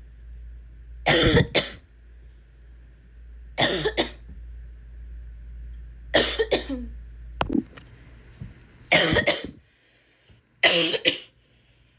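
A woman's harsh barking cough: five fits of two or three sharp coughs each, coming every two to three seconds.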